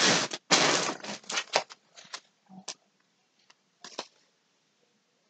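Packaging crinkling and rustling as yarn cakes are handled out of a cardboard box. A dense rustle fills the first second, then scattered crackles thin out, with one more brief rustle about four seconds in.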